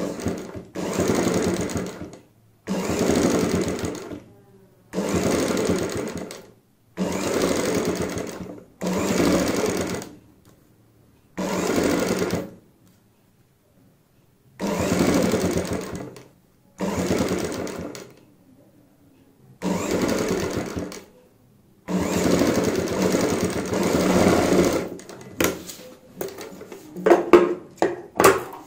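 Sewing machine stitching beaded lace along a neckline in about ten short runs of one to three seconds, stopping briefly between runs while the fabric is repositioned. Near the end come a few sharp snips of scissors cutting the lace at the corner.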